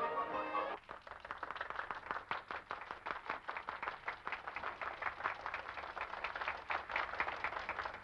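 An orchestra's string-led playing stops under a second in, and an audience breaks into dense, steady applause.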